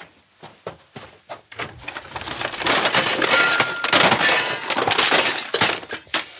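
Radio-play sound effects of the lion scrambling out of a wardrobe: a few soft knocks, then loud rustling and clattering that stops abruptly near the end.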